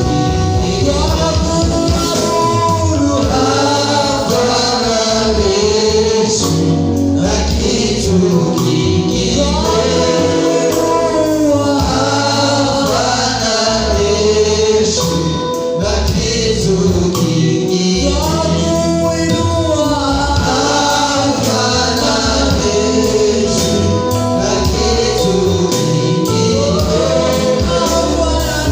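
Gospel worship song: a group of voices singing together over a steady bass and drum accompaniment.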